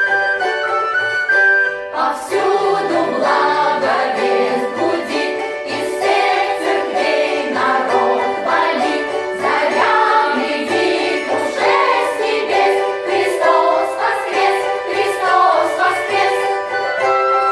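A small vocal ensemble singing an Orthodox Easter song in several voices over instrumental accompaniment. A flute-like melody plays alone for the first two seconds, and then the voices come in.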